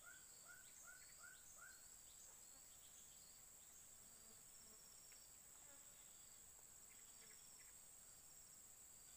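Faint insect chorus: a steady high-pitched buzz. Over it, a bird gives five short arched notes in quick succession in the first two seconds.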